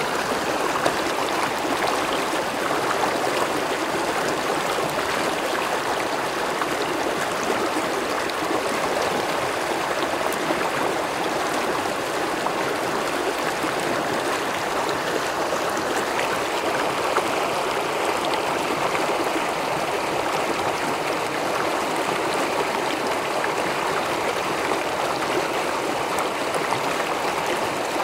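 A swollen river in flood, its fast muddy water rushing steadily with an unbroken noise.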